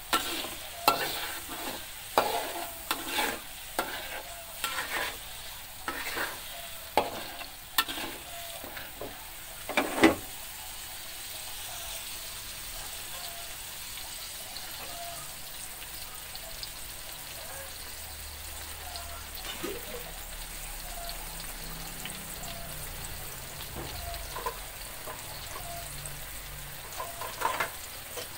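Ground chili spice paste frying in oil in an aluminium wok, sizzling steadily, while a metal spatula scrapes and knocks against the pan about once a second for the first ten seconds or so, then only now and then near the end.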